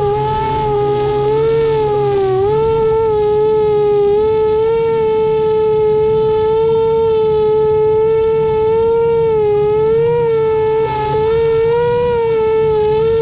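Motors of a 7-inch FPV quadcopter whining at a steady pitch that wavers gently up and down with the throttle, dipping briefly about two and a half seconds in, heard from the drone's onboard camera.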